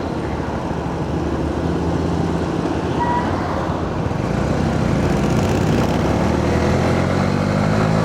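Honda CB125R's single-cylinder four-stroke engine running under way, mixed with road and wind noise; the engine note rises slightly in the second half.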